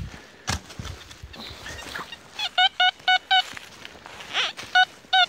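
Metal detector giving short, evenly repeated beeps as its coil is swept over a freshly dug hole: four quick tones a little over two seconds in and another run near the end, a repeat target signal from metal in the hole. A dull thud of digging sounds about half a second in.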